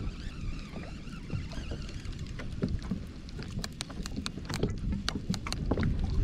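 Wind rumbling on the microphone and water sloshing against a kayak hull, with scattered sharp ticks throughout.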